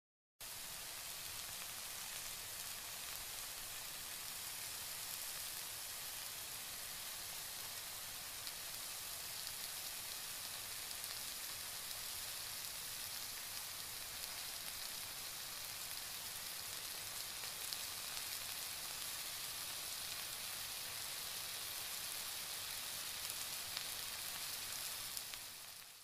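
Curry simmering and sizzling in a steel pan: a steady hiss that begins and ends abruptly.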